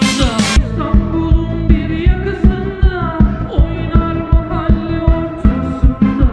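Music: a song with a steady thumping beat under held and sliding melodic notes, the bright upper sound cut away for most of the passage.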